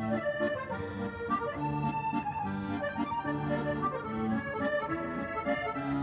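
Accordion music: a held melody over an accompaniment of bass notes alternating with chords in a steady rhythm.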